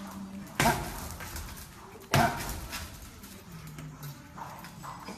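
Two hard strikes landing on a heavy punching bag, about a second and a half apart, each a sharp smack with a short echoing tail.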